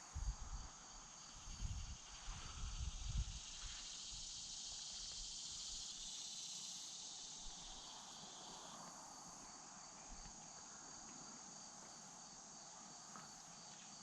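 Steady high-pitched chorus of crickets trilling in an even pulse, with a broader insect buzz joining for a few seconds midway. Low thumps on the microphone in the first three seconds or so.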